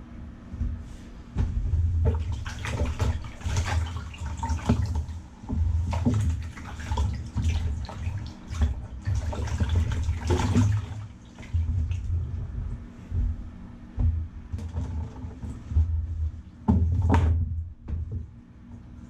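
Water sloshing and splashing in irregular bursts, as a soaked car floor carpet is washed.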